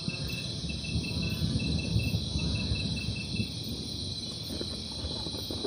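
Recorded jungle ambience: crickets chirping in a rapid pulsing rhythm over a steady high insect drone, with a low rumble underneath. The chirping stops a little past halfway.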